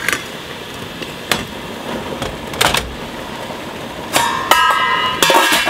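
Stainless steel stockpot and lid clanking: a few light metal clicks, then two clangs near the end that ring on for a moment, typical of the lid being set onto the pot. A steady hiss runs underneath.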